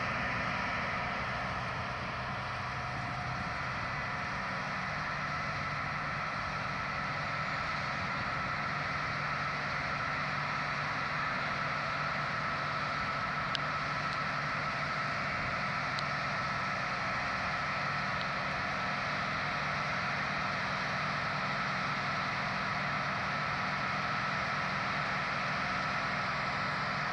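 Claas Mega 204 combine harvester running steadily while its unloading auger empties the grain tank into a truck: a constant engine hum with a steady high machinery whine over it.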